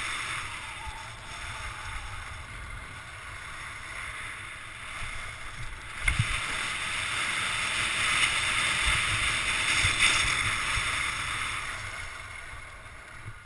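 Skis hissing and scraping over packed snow on a downhill run, with wind buffeting the body-worn camera's microphone. A thump about six seconds in, then the hiss swells before fading near the end.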